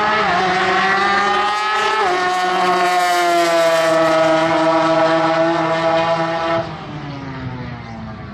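Naturally aspirated Mazda 13B two-rotor rotary engine at full throttle on a drag run. The pitch climbs, dips sharply twice at gear changes, then holds high. About six and a half seconds in it falls away abruptly to a quieter engine note that sinks in pitch.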